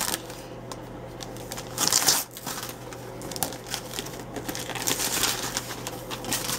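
Wrapping paper crinkling and rustling as a gift box is unwrapped by hand, in irregular bursts, the loudest about two seconds in.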